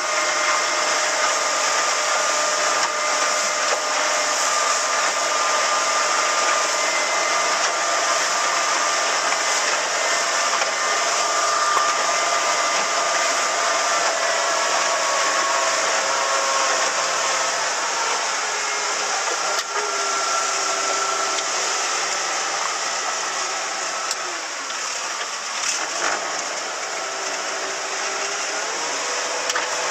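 Small motorboat's engine running at speed, a steady whine under the rush of wind and water past the hull. The engine note drops for a stretch in the second half and rises again near the end.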